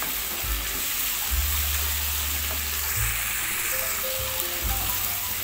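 Chicken and vegetables sizzling in oil in a frying pan as they are stirred and turned with a spatula. Faint background music plays under it.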